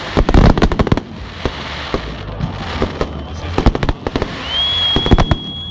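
Fireworks display: aerial shells bursting in quick crackling bangs, densest in the first second, then scattered bangs. A steady high whistle starts near the end.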